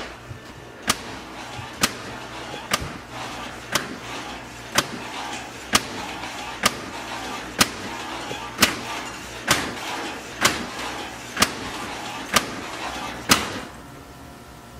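A hand striking a wall or door frame: sharp knocks repeating steadily about once a second, fourteen in all, over a low steady hiss.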